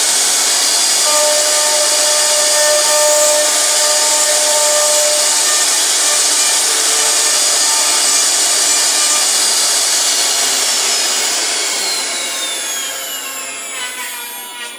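CNC router spindle running, its bit milling a wooden name plate, a steady high hiss with faint whining tones. Over the last few seconds the whine falls in pitch and fades.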